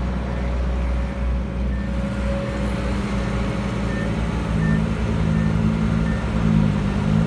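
Heavy diesel machinery engine running steadily with a deep rumble, working harder about two-thirds of the way in.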